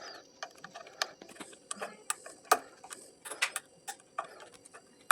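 Irregular small clicks and taps of wires and a bulb holder being handled and fixed to the ceiling fan's terminal connections.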